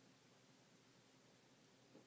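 Near silence: faint room hiss, with one brief soft knock near the end.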